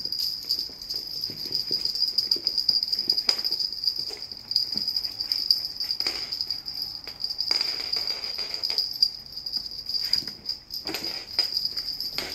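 Small bells on a rope, tied to a riding crop, jingling continuously as the rope is shaken and dragged about, with scattered knocks and scuffs on the floor and a longer scraping rush about two-thirds of the way through.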